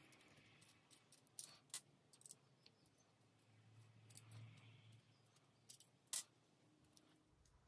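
A handful of faint, sharp clicks and taps from small screws and a scope mounting ring being handled and set down on a table, with a soft rustle partway through.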